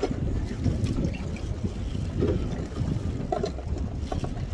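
Wind buffeting the microphone over water lapping against a small boat's hull on a choppy sea, with a few faint clicks.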